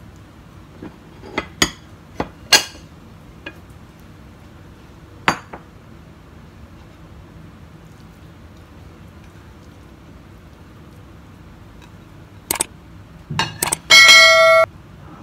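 Ceramic dishes clink and knock sharply several times as a bowl of fried rice is turned out onto a ceramic plate. Near the end a loud, bright bell chime rings for under a second and cuts off suddenly; it is a subscribe-button sound effect.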